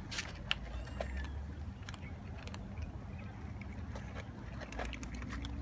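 Several cats crunching dry kibble, heard as a scatter of small, irregular crunching clicks over a low steady rumble.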